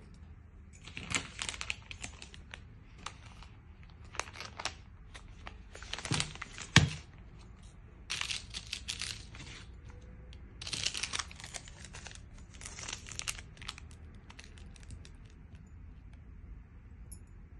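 Foil sauce sachets crinkling in repeated short bursts as they are handled and laid out on a wooden floor, with one sharper knock about seven seconds in.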